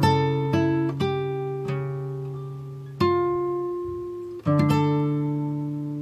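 Background music of a plucked acoustic guitar. Chords are struck every second or two, and each one rings out and fades.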